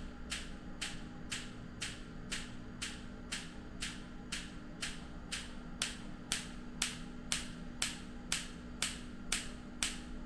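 Focused shockwave therapy applicator firing sharp clicking pulses at an even rate of about two a second, over a steady low hum.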